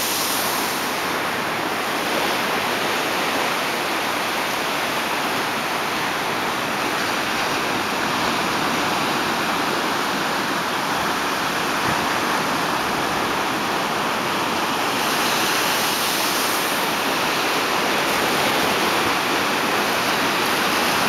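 Small ocean waves breaking and washing in over the shallows, a steady rush of surf. About three-quarters of the way through, the hiss of a wave grows brighter for a couple of seconds.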